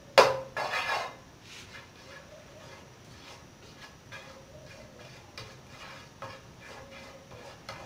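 Spatula knocking and scraping in a non-stick frying pan while butter melts: one loud knock and scrape near the start, then lighter scrapes every second or so.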